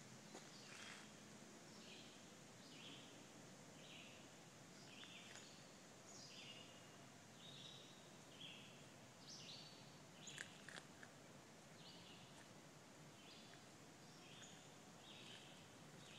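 Faint swamp chorus of many short, repeated high-pitched animal calls overlapping each other over a steady hiss, with a few sharp clicks about ten seconds in.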